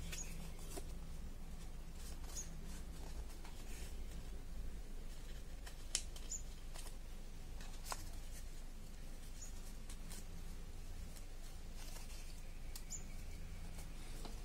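Origami paper crinkling and crackling as it is folded and shaped by hand, with scattered sharp crackles, the loudest about six seconds in, over a steady low hum.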